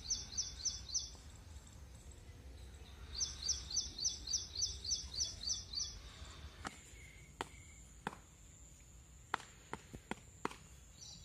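A bird calling runs of high, quick chirps, about four a second: a short run at the start and a longer run of about ten notes a few seconds in. In the second half, several sharp clicks and a faint high steady tone.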